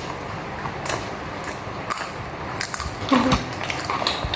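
Close-up eating sounds: irregular crunches and clicks from chewing crunchy snack food, with a short voice-like sound just after three seconds.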